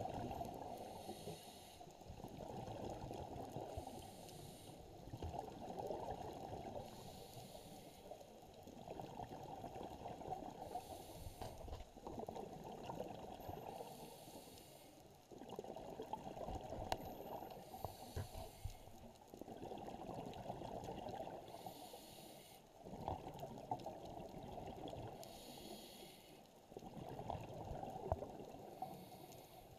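Scuba diver breathing through a regulator, heard underwater: a low, steady breathing cycle broken about every three to four seconds by a short hissing burst of exhaled bubbles.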